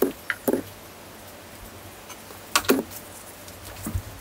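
A few short knocks and clatters of a glass blender jar and plastic syringe being handled while oil is poured and the syringe is set up, over a faint steady low hum.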